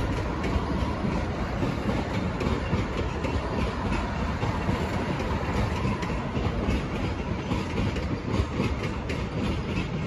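V/Line VLocity diesel railcar set running along the track: a steady rumble of diesel engines and wheels on rail, with no horn sounding.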